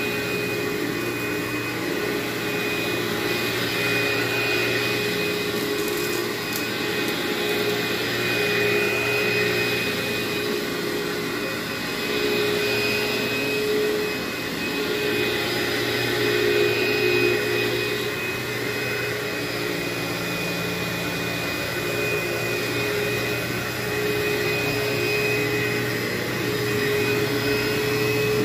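Upright carpet vacuum with a brush roll running steadily: a high whine over the motor hum, the level swelling and dipping a little as it is pushed back and forth across the carpet. This is the dry-vacuuming pass, picking up dry soil and hair before steam cleaning.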